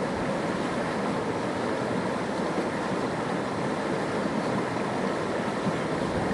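Steady rushing of flowing water, an even hiss with no change in level.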